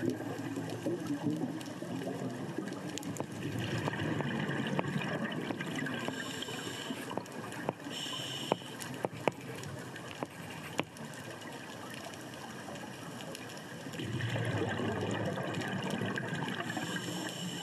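Scuba divers' exhaled bubbles rushing and gurgling out of their regulators underwater, swelling in several bursts a few seconds long, with scattered sharp clicks.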